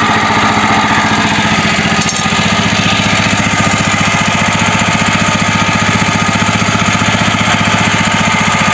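A 17 hp Bright air-cooled petrol engine on a homemade mini tractor running steadily with an even beat.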